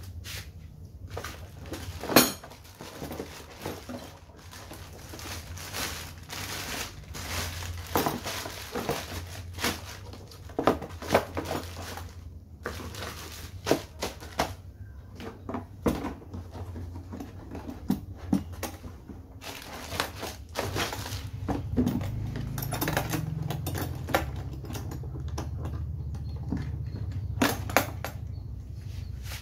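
Plastic wrapping crinkling and hard plastic tool-case parts knocking and clicking as a rotary hammer is packed into its carry case. Near the end the case lid is shut and its latches clicked closed.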